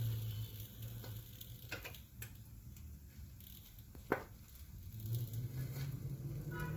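Egg frying on the non-stick plate of a Kenwood electric health grill: a faint sizzle, with a few light sharp clicks, the clearest about four seconds in.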